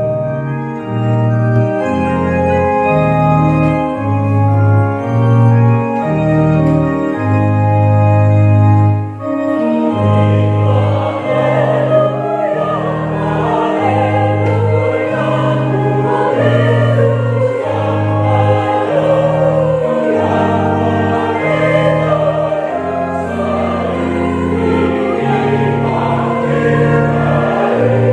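A mixed church choir singing a hymn to an electronic organ. The organ's held chords and stepping bass lead at first, and the voices come in strongly about nine seconds in.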